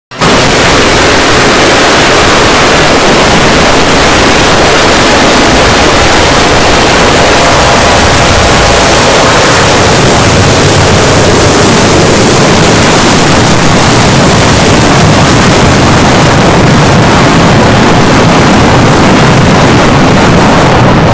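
Jumpscare sound effect: a very loud, harsh wall of distorted noise that bursts in suddenly, holds at full level throughout and cuts off abruptly.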